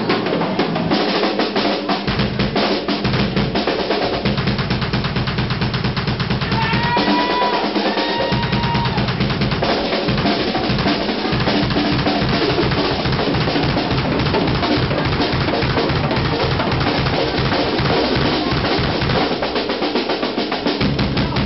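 Live rock drum kit solo: fast rolls and strokes across snare, toms and cymbals, over stretches of rapid bass drum strokes that stop and start.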